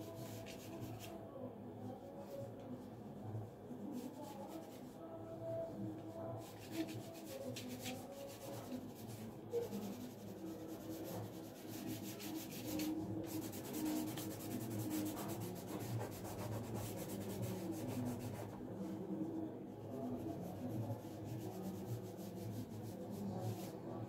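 Pencil scratching on drawing paper, in stretches of quick, repeated short strokes as lines and shading are drawn, busiest around the middle.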